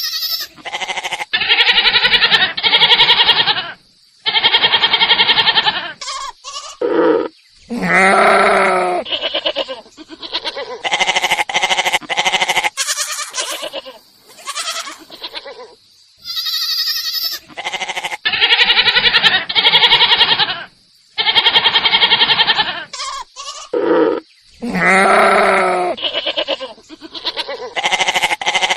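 Goats bleating over and over, a string of loud, quavering bleats each about a second long with short pauses between, some deeper and some higher. The same run of calls seems to start again about halfway through.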